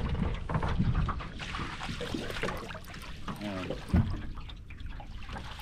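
Water splashing and trickling against the side of a small boat as a hooked fish is drawn up alongside, with a brief voice about three and a half seconds in and a sharp knock just after.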